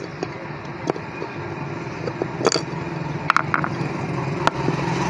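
A screwdriver prying and clicking against a sewing machine motor's end cover as the worn bush is worked out of its seat. The clicks and scrapes are scattered, the loudest about two and a half seconds in, over a steady low hum that rises slightly near the end.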